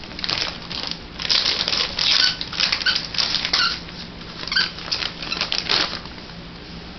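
Irregular bursts of rustling and crinkling as a husky digs, paws and noses through its gift wrapping and toys, dying down near the end.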